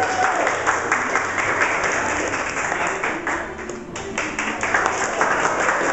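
A small group of people applauding by hand, a dense patter of claps that thins briefly about three and a half seconds in, then picks up again.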